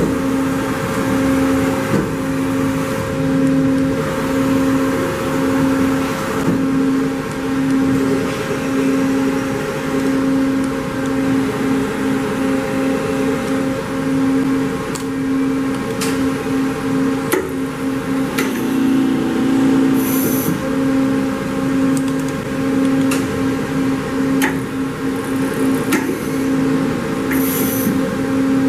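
Daewoo Puma 15 CNC slant-bed lathe running, its spindle drive giving a steady hum that throbs in a regular rhythm. Occasional sharp clicks and two brief high hisses sound over it.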